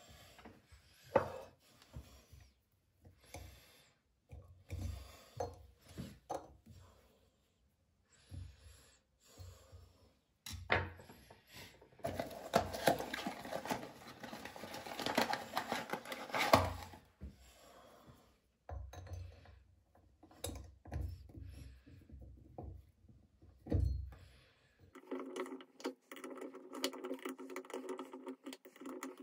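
Handling sounds at a bathroom basin: scattered knocks and clicks, with a stretch of rustling as the cardboard box of a Hansgrohe replacement tap cartridge is picked up and handled about halfway through. Near the end a steady hum with several even pitches sets in.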